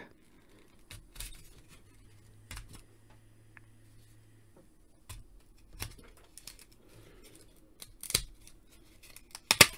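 Cardboard accessory tray being opened by hand: scattered small clicks, scrapes and snaps of cardboard and tape, the loudest a couple of sharp snaps near the end.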